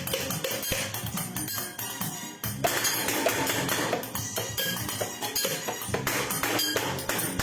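Music with busy, rapid percussion hits; the sound gets fuller and louder about two and a half seconds in.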